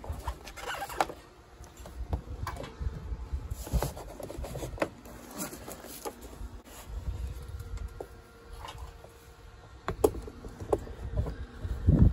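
Hard plastic body panels and the air-intake duct of a John Deere Gator UTV being handled and pried at, giving scattered clunks and scrapes, the loudest near the end. Chickens cluck in the background.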